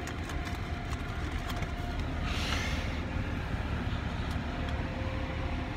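Steady low rumble of an idling car heard from inside its cabin, with a faint steady hum and a brief hiss about two and a half seconds in.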